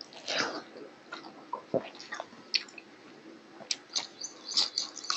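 Close-miked eating sounds of a man chewing a mouthful of rice and curry: wet chewing and lip smacks heard as a string of short sharp clicks, thickest near the end.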